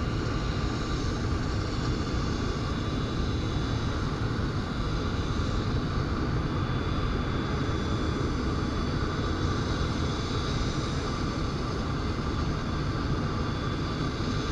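A motor running steadily: an even rumble with a faint constant whine, neither rising nor falling.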